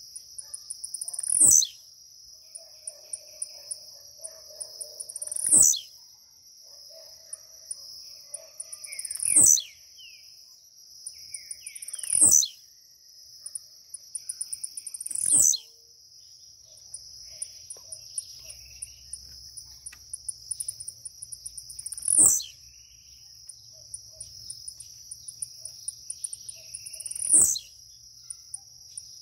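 Blue-black grassquit (tiziu) repeating its short, buzzy 'tiziu' song seven times, a brief falling note every three to four seconds. Each song is led in by a run of quick high ticks that grows louder. A steady high insect drone runs underneath.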